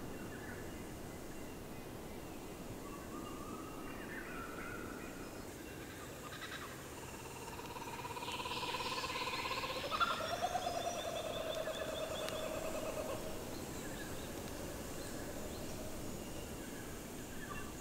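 Several wild birds calling, the loudest a long whistled call with a trill above it around the middle.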